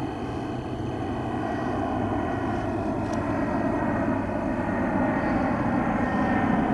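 Aircraft engine drone overhead, a steady rumbling noise growing slowly louder.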